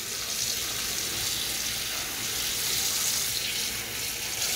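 Kitchen tap running steadily into a pot of cold water.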